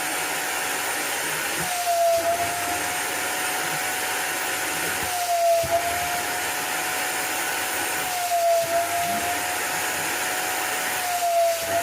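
VEVOR wet vacuum running steadily with a high whine while its small nozzle sucks water out of fabric upholstery. About every three seconds the pitch dips briefly and the sound swells, as each stroke of the nozzle takes in water.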